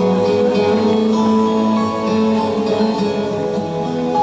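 Acoustic guitar music from the soundtrack of a projected video, heard through a lecture hall's loudspeakers.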